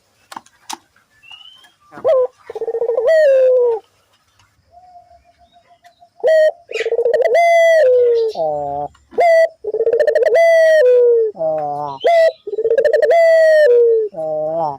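Puter (Barbary dove) cooing over and over: long coos that rise and then fall away, with shorter coos stepping down in pitch between them. It is the coo of a vocally active puter, used as a lure call to get other puter doves to coo.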